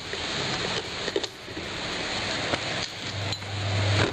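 Clicks over a steady hiss, then about three seconds in the newly fitted wash motor of an LG twin-tub washing machine switches on with a steady low electric hum.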